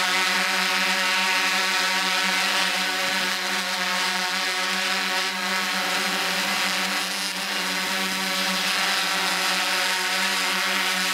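Drone's electric motors and propellers running steadily: a constant buzz with many even overtones.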